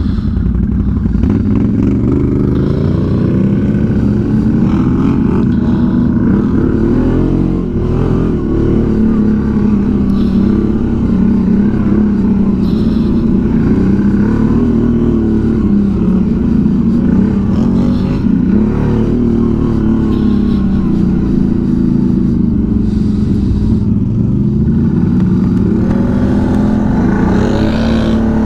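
ATV's V-twin engine running on the trail under throttle, its pitch rising and falling repeatedly as the rider works the throttle, with a couple of short dips.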